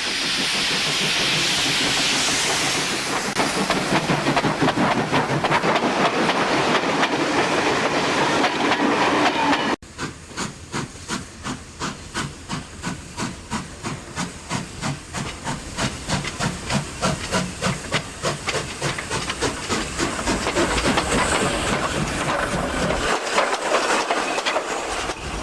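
Steam locomotive venting a loud hiss of steam while it chuffs. After an abrupt cut about ten seconds in, it runs on with steady exhaust chuffs, about two a second.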